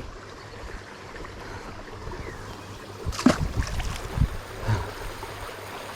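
Steady rush of creek water pouring over a small spillway, with a brief cluster of sharp, sudden sounds about three seconds in and a few smaller ones after.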